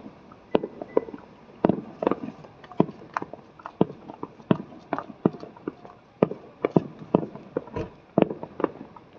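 Fireworks going off: a run of sharp bangs and crackling pops at irregular intervals, several a second.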